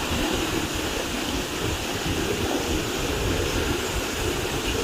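Waterfall's falling water, a steady unbroken rush.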